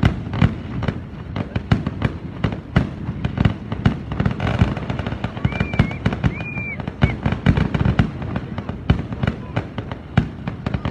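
Aerial fireworks bursting: a dense, irregular run of bangs and pops, several a second, without a break.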